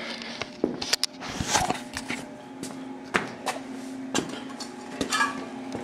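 Scattered knocks, clicks and rustles of someone walking across a barn's concrete floor carrying the camera, over a faint steady hum.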